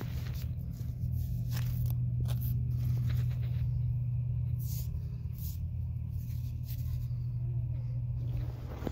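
Steady low rumble throughout, with a few brief scratching sounds of fingers working in sand and handling a fossil shark tooth.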